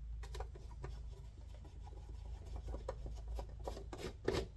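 Precision screwdriver backing screws out of a Dash 3000 patient monitor's metal chassis: light scratchy clicks and rubs of the bit in the screw heads and fingers on the metal, with the loudest click a little past four seconds in.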